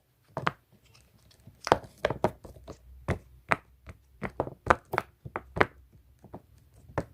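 Fidget toy being pressed on its quiet side: small, sharp clicks and pops, about three a second in an uneven rhythm.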